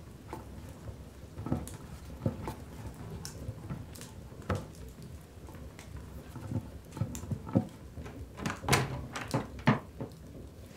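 Bread dough being kneaded by hand on a floured table: irregular soft thumps and slaps, coming faster and louder in the last few seconds.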